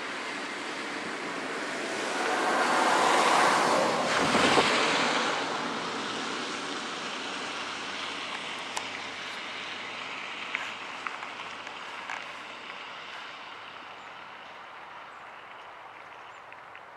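Wind rushing over the microphone, swelling in a gust from about two seconds in and fading after five, with a faint low hum from the approaching diesel freight train's locomotive underneath. A few faint clicks in the middle.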